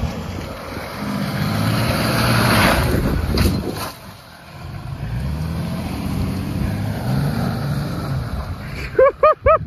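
Ram pickup truck's engine running hard as the truck climbs a muddy slope, with the tyres spinning and throwing mud; the engine note rises in the second half. A person's voice calls out near the end.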